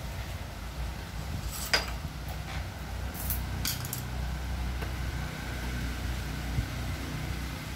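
A few sharp metallic clinks of tools and engine parts being handled during engine disassembly, the loudest about two seconds in, over a low steady rumble.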